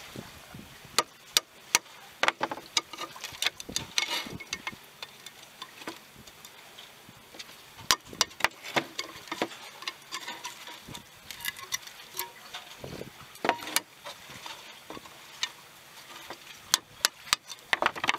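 Claw hammer tapping a metal punch held against a conch shell: a run of sharp, irregular taps and clinks, some in quick clusters, as the shell is chipped open to make a horn.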